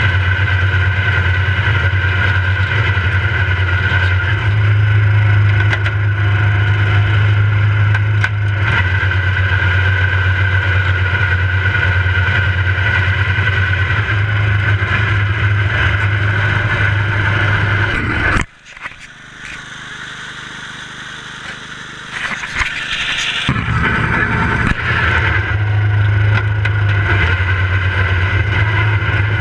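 Riding lawn mower engine running steadily under load with a strong low drone. About two-thirds of the way through the engine sound cuts off abruptly, leaving a quieter gap of about five seconds, and then returns at full level.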